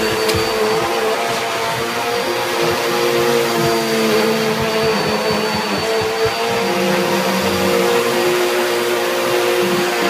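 Blue upright bagless vacuum cleaner running steadily, its motor giving a steady whine over a rushing airflow. A few short low knocks sound, mostly in the first couple of seconds.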